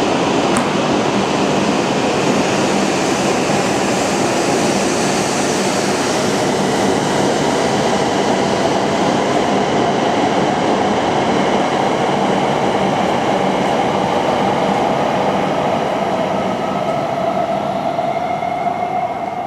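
Hokuriku Shinkansen E7/W7 series train running past the platform: a steady, loud rush of running noise with a thin motor whine that sinks slowly in pitch over the last several seconds. It cuts off suddenly at the end.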